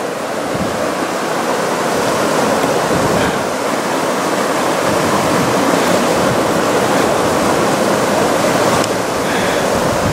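Mountain stream rushing and splashing over rocks, a steady dense rush of water that grows a little louder over the first few seconds.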